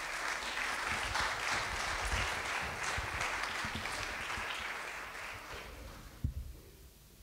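Audience applauding steadily, then dying away over the last couple of seconds, with a single thump near the end.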